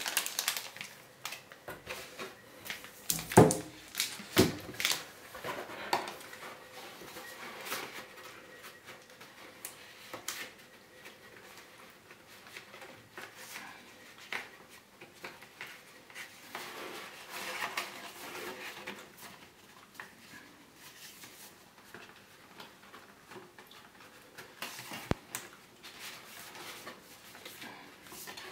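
Cardboard packaging and a boxed smart display being handled: rustling, scraping and irregular knocks, loudest a few seconds in, then quieter rustling with one sharp knock near the end.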